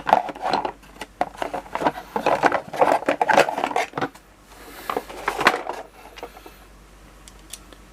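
Hands handling screwdrivers and their packaging: dense clicking, knocking and rustling for the first several seconds, then only a few scattered clicks.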